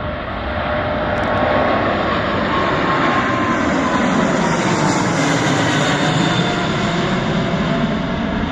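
Emirates jet airliner's engines at take-off thrust just after lift-off: loud steady jet noise that swells about a second in, with whining tones that slowly fall in pitch as it passes.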